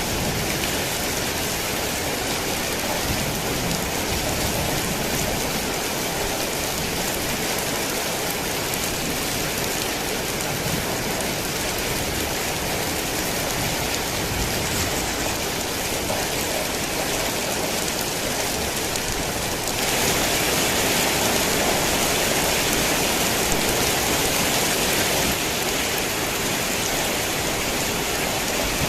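Heavy rain falling steadily. It grows louder for about five seconds, a little over two-thirds of the way through, then eases back.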